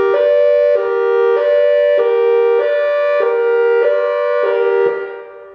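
Whelen electronic outdoor warning siren, set to mimic an XT22, sounding a hi-lo tone: two steady pitches swapping sharply back and forth, each held a little over half a second. It cuts off near the end, and its echo fades away.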